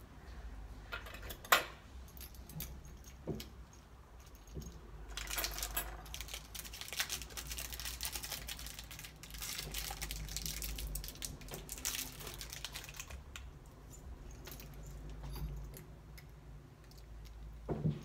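Small metal lock parts and keys handled by hand, clicking and jangling together: a sharp click about a second and a half in, then a stretch of dense rattling and clinking that thins out toward the end.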